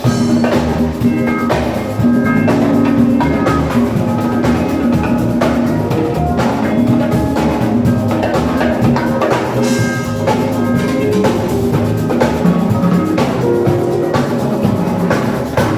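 Live band music: loud drumming with a steady beat under held pitched notes, as at a sound check.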